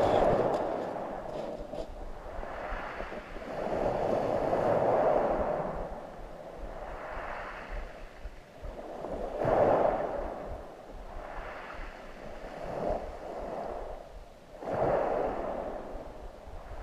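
Small waves breaking and washing over a shingle beach, the wash swelling and fading every few seconds.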